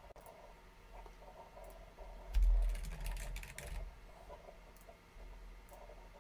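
Typing on a computer keyboard: a quick run of keystrokes starting about two and a half seconds in and lasting just over a second, with a few single clicks before and after it.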